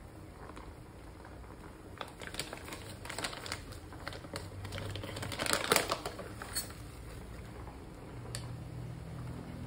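Foil-lined seasoning packet crinkling and crackling as it is handled and torn open by hand. The crackles start about two seconds in, come in quick clusters, and are loudest a little past the middle.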